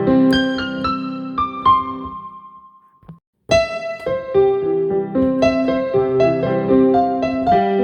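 Keyboard music with a piano sound: a phrase of notes fades out, there is a brief gap of silence, and a new passage of notes begins about three and a half seconds in.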